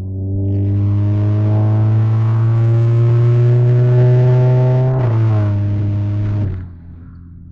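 Volkswagen Jetta 2.0 TSI's turbocharged four-cylinder engine accelerating hard and loud, its note climbing slowly for about five seconds. The pitch drops quickly about five seconds in, and the engine falls away to a low run about a second and a half later.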